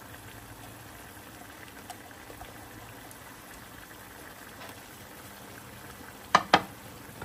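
Wok of pork offal and shallots simmering in its cooking liquid, a steady bubbling, with two quick sharp knocks near the end.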